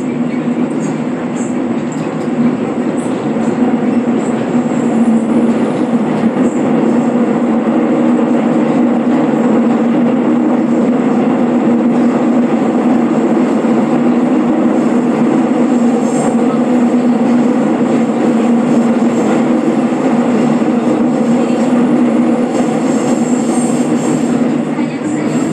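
Cabin running noise of a Seoul Subway Line 2 Hyundai Rotem electric train at speed: a steady rumble of wheels on rail with a low hum, building over the first few seconds and easing a little near the end.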